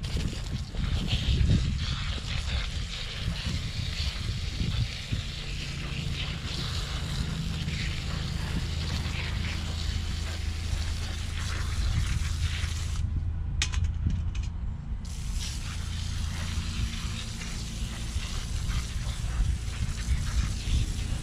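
Garden hose spray nozzle hissing as it rinses mud off split mud crab pieces in a metal bowl, cutting out briefly about two-thirds of the way through.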